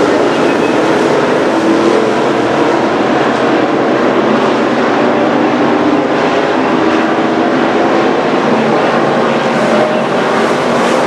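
Street stock race cars running at speed on the track: a loud, steady, unbroken engine drone with a wavering pitch.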